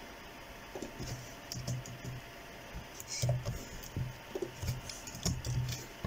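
Computer keyboard typing: irregular keystroke clicks, some in quick clusters, as a line of code is entered.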